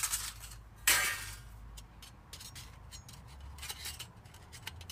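Thin titanium stove panels clinking and clattering against each other as they are picked up and handled, with the sharpest clatter about a second in and lighter taps after.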